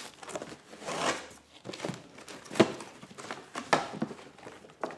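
Cardboard box and packaging being opened and handled: irregular rustling and crinkling, with a few sharp knocks.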